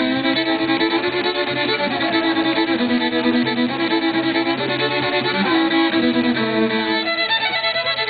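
Fiddle playing a tune in long held notes, the pitch changing every second or so.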